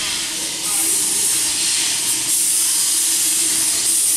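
Steam hissing steadily from the 15-inch gauge steam locomotive Northern Rock, a loud, even hiss that swells slightly a couple of times, with a faint low hum beneath it.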